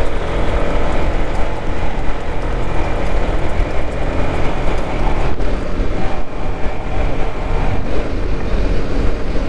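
Motorcycle running at a steady cruising speed, with wind rushing over the rider's microphone as a loud, low, even noise and a faint steady engine tone under it.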